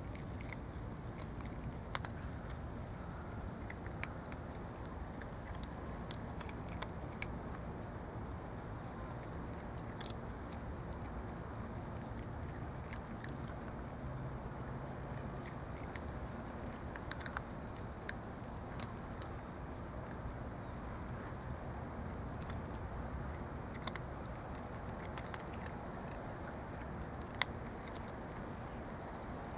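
Two cats chewing dry kibble: scattered short, sharp crunches over a steady low outdoor background, with a thin, steady high insect trill.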